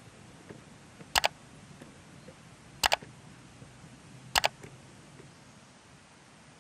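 Computer-mouse click sound effects, three quick double clicks about a second and a half apart, over a faint steady hiss.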